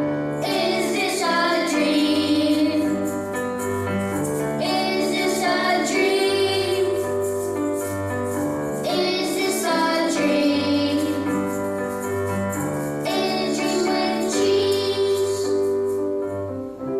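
Young singers performing an original song: sung vocal phrases over instrumental backing with a repeating bass line, in phrases of about four seconds.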